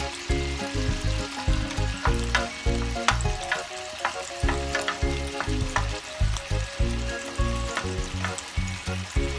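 Ahi tuna steak sizzling in butter in a nonstick pan, with scattered clicks of a spoon against the pan as the fat is spooned over the fish.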